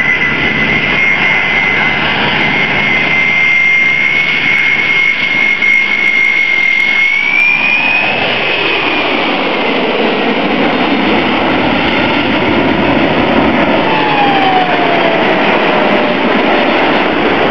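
Airbus A310 airliner's twin turbofan engines making a low, gear-down pass: loud, steady jet engine noise with a high whine. The whine rises in pitch about seven seconds in as the jet comes overhead. It then falls, and the noise turns deeper as the aircraft climbs away.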